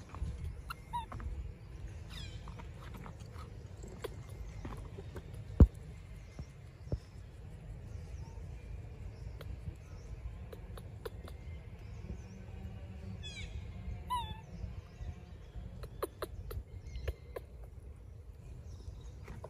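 Outdoor ambience: a steady low rumble with scattered small clicks and a single sharp knock about six seconds in. A quick run of short high falling chirps comes about two-thirds of the way through.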